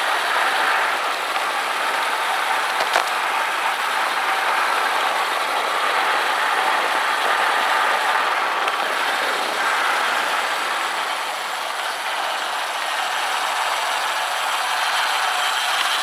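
Steady rush of wind over a helmet-mounted camera, with tyre noise, from a road bike descending at speed.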